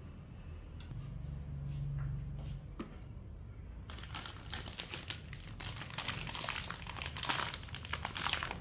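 Plastic packet of Chinese herbal soup mix crinkling as it is handled, a dense rapid crackle starting about four seconds in; before that only a few light knocks.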